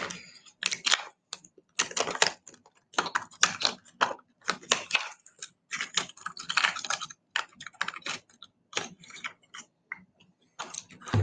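Stiff plastic lure packaging being opened and handled: a run of irregular crinkling and clicking as a crankbait is worked out of its package.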